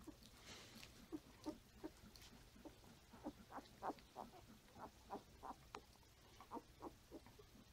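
Five-day-old Standard Poodle puppies squeaking and grunting in short little calls, two or three a second, starting about a second in.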